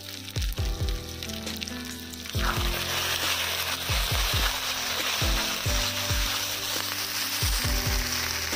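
Sliced onions, tomatoes and spice powders frying in hot oil in a wok, sizzling; the sizzle grows much louder about two and a half seconds in as the mix is stirred with a spatula. Background music with a deep beat plays over it.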